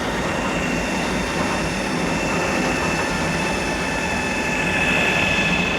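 G & P double-end grinding, polishing and buffing lathe running under its two 5-hp electric motors: a steady machine hum and rush with a high whine that grows a little louder near the end.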